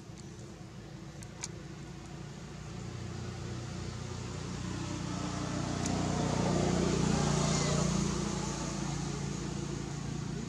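A motor vehicle's engine running, growing louder from about three seconds in to a peak around seven seconds and then fading, as it passes by.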